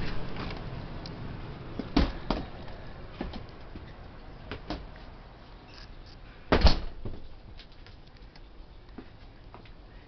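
A door being opened and let shut on the way outside: two knocks about two seconds in and a louder bang a little past the middle, with small clicks and steps between.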